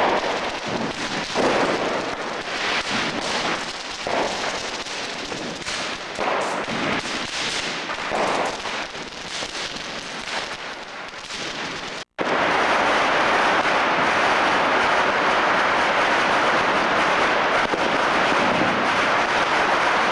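Fireworks and firecrackers going off, many overlapping bangs and crackles. The sound cuts out for an instant about twelve seconds in, then becomes a steady, dense crackle of massed firecrackers.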